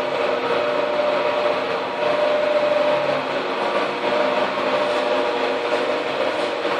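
Electric buffing machine running steadily, a constant motor hum and whine with a rushing noise over it.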